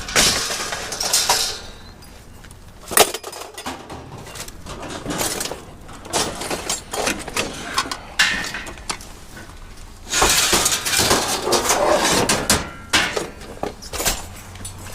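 Scrap metal and junk being handled and tossed about, clattering and clanking, with a sharp knock about three seconds in and a longer run of clatter later on.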